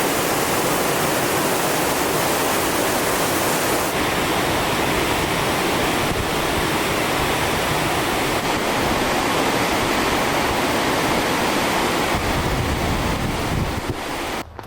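Waterfall rushing steadily, a constant loud wash of falling water that cuts off abruptly near the end.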